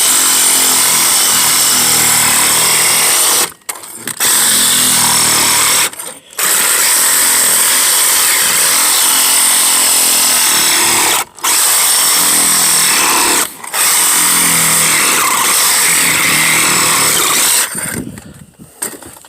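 Handheld power tool fitted with a blade running at full speed, chewing up old carpet layers on a fiberglass boat floor. It runs in long stretches, stopping briefly four times, and cuts off near the end.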